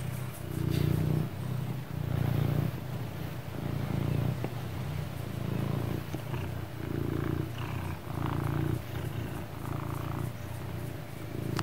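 Domestic cat purring close up: a steady low purr that swells and fades with each breath, roughly every second and a half.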